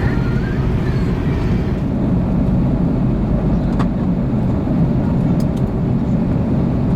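Steady cabin noise of an Airbus A340-600, engine and airflow noise heard from inside the cabin, with a couple of faint clicks about four and five and a half seconds in.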